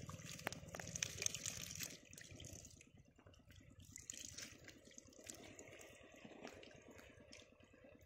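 Shallow water trickling down a narrow mud channel, with small splashes and clicks in it; louder for the first couple of seconds, then fainter.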